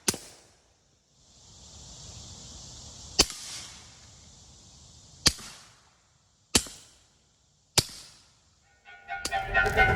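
Five suppressed 9mm shots through a Stealth 9mm suppressor with 147 grain subsonic ammunition, fired singly a second or more apart, each a sharp crack with a short tail. Near the end, music comes in.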